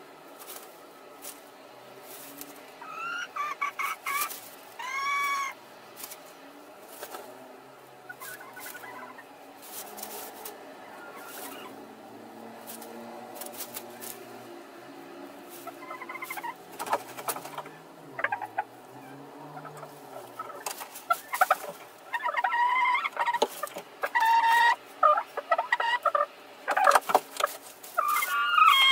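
Domestic hens clucking and squawking in a straw nest box, with dry straw rustling and clicking as a hen works it with her beak. The calls are sparse at first, then come louder and more often in the second half.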